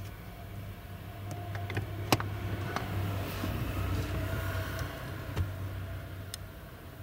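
Homemade release tool being pushed onto the plastic ball-joint bracket of a Porsche Cayenne brake pedal, spreading its two barbs to free the brake booster pushrod's ball head. There is a sharp click about two seconds in, then scraping and creaking, and a couple of lighter clicks near the end, over a steady low hum.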